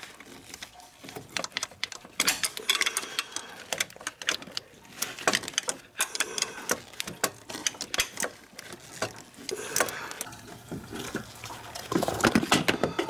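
Ratchet wrench clicking in short runs as the water pump pulley bolts are turned, with metal tools clinking against the engine parts. A denser, louder clatter comes near the end.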